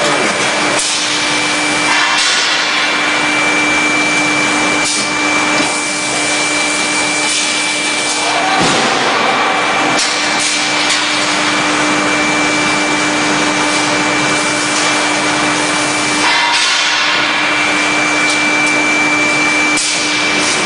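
Hot forging press line with water spray running: a loud steady hiss over a constant hum, with a few sharp knocks. The hiss swells about two seconds in and again near the end.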